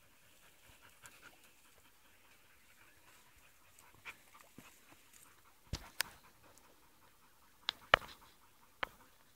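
Alano dog panting softly, with a handful of sharp clicks in the second half, the loudest about eight seconds in.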